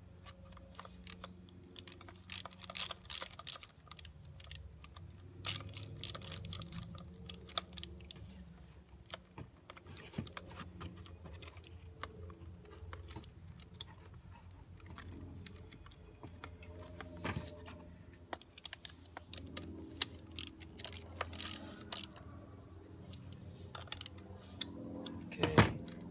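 Irregular small metal clicks and rattles of outboard carburetor and intake manifold parts being handled and bolted together, with one louder knock near the end.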